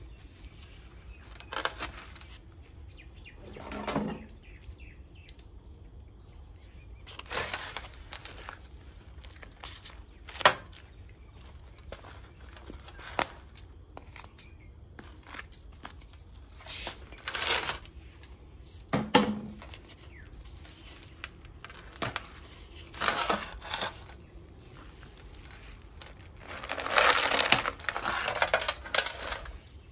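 Handling sounds of a ficus bonsai being worked loose from its plastic pot with a knife: intermittent scraping, rustling and crumbling soil. There is a sharp knock about ten seconds in, and a longer stretch of scraping and crumbling near the end as the root ball slides out.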